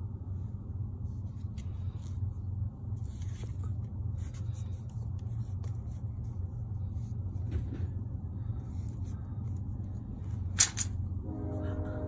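Light clicks and rustles from a tape measure and marker handled against a PVC pipe, with one sharp click near the end, over a steady low rumble.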